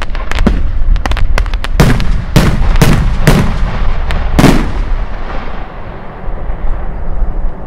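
Italian cylindrical fireworks shells being fired from mortars and bursting overhead: a rapid series of sharp booming reports with smaller pops between, the loudest from about two to four and a half seconds in, dying down after about five seconds.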